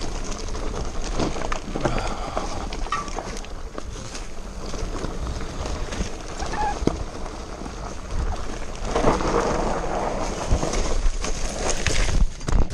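Full-suspension mountain bike (Scott Genius 720 Plus) rattling over a rocky trail, tyres and frame knocking on loose stones in an irregular clatter, louder about nine seconds in.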